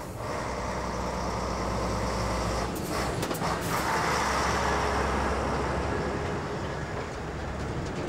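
Heavy truck hauling an elephant transport crate, its diesel engine running as it drives slowly past, with a few brief rattles about three seconds in and louder passing noise around four to six seconds in.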